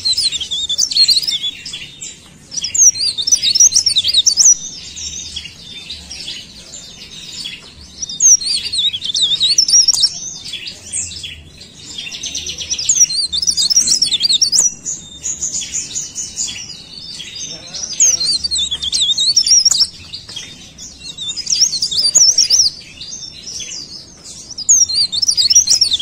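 Cikrak daun (blereng), a small leaf warbler, singing: bursts of rapid, high twittering phrases one to three seconds long, repeated again and again with short pauses.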